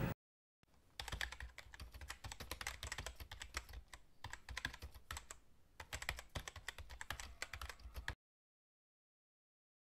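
Typing sound effect: rapid, irregular keyboard clicks that start about half a second in and stop abruptly about eight seconds in, the sound of on-screen title text being typed out.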